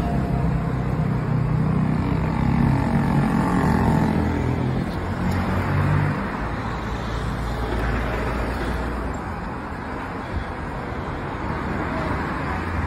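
Street traffic noise: a motor vehicle passes over the first six seconds or so, then a steady wash of road traffic.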